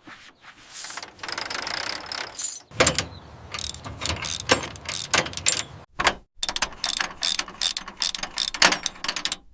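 Tool sounds of a tractor engine being repaired: scraping for the first few seconds, then quick runs of sharp mechanical clicks and metal clanks, like a ratchet wrench at work.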